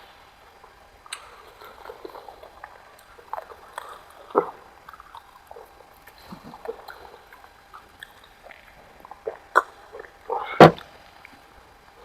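Close-up eating sounds: chewing with wet mouth clicks and smacks, irregular throughout, with one sharp, much louder click near the end.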